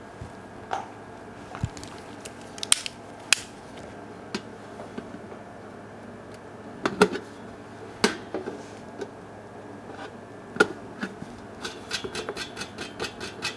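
Small clock parts clicking and clinking as a wall clock is taken apart by hand. Sharp single knocks are scattered throughout, and a quick run of clicks comes near the end.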